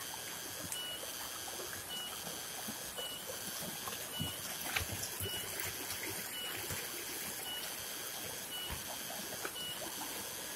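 Small shallow forest stream trickling over stones, fairly faint and steady. A short high call repeats at an even pace, a little more than once a second.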